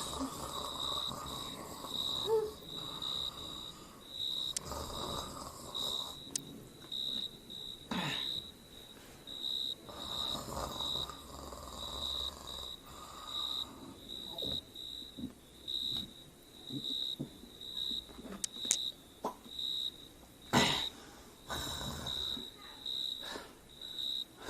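A sleeping man snoring, long wheezy breaths every few seconds, with crickets chirping steadily in the background. A short sharp noise, the loudest moment, comes about two-thirds of the way through.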